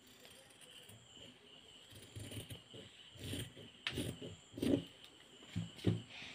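Scissors cutting through heavy uniform coat fabric in a series of short snips, the loudest about four and six seconds in.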